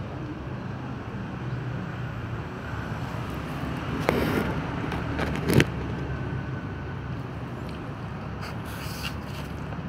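Steady low motor hum, with a louder noisy patch about four seconds in and a sharp knock about a second and a half later.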